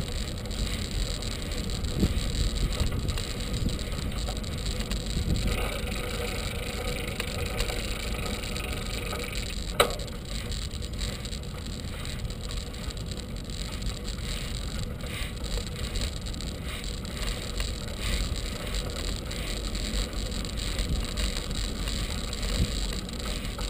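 Bicycle rolling along a paved path, a steady low rumbling road noise picked up by a camera mounted on the bike, with one sharp knock about ten seconds in.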